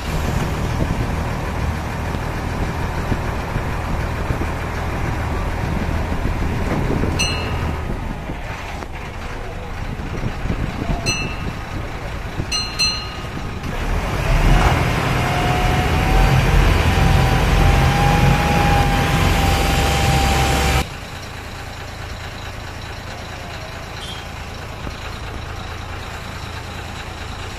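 An engine running steadily with a low hum. About halfway through it grows louder, with a steady whine over it, then drops suddenly to a quieter hum about three quarters of the way through. A few short high chirps sound in the first half.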